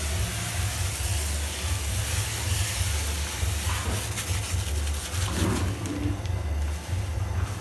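Steady hiss and low rumble of a burner heating a large pot of water for boiling corn.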